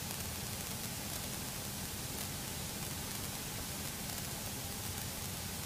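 Steady hiss from an aircraft headset intercom, with the single-engine piston airplane's engine droning faintly underneath at low taxi power.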